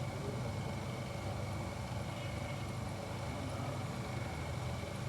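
A car engine idling steadily, a low even drone with a thin steady high whine over it.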